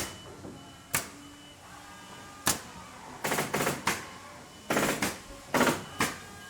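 Irregular sharp clicks, some single and some in short rattling clusters of rapid taps, with faint steady tones beneath.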